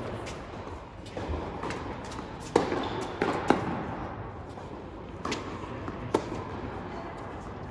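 Tennis ball struck by rackets and bouncing on an indoor hard court during a rally: a series of sharp pops, the loudest a few seconds in.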